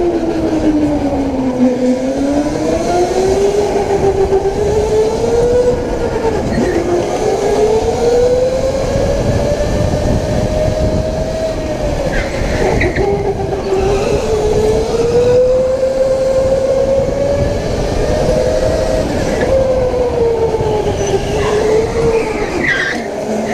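Onboard sound of an electric go-kart: the motor's whine rising and falling in pitch with speed through the corners, over road and tyre noise. A brief higher squeal comes about halfway through and again near the end.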